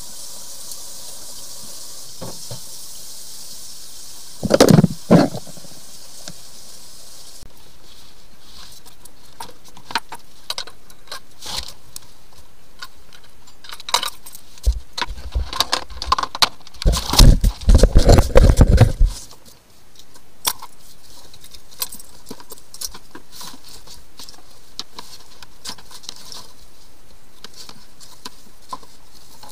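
Handling noises under a sink: scattered clicks, scrapes and rubbing as plastic drain hoses are gripped and moved. A loud bump comes about five seconds in, and a burst of louder knocking and rubbing a little past the middle.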